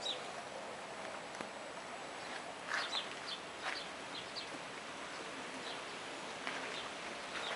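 Scattered short, high bird calls over a steady background hiss, about a dozen calls coming irregularly from a few seconds in.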